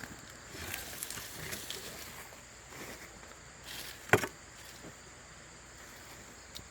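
Digging in garden soil while harvesting potatoes: faint rustling and small clicks, with one sharp knock about four seconds in. A steady high insect drone runs behind.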